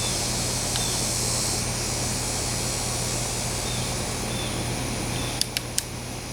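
Steady background hum with a hiss, and three quick sharp clicks about five and a half seconds in.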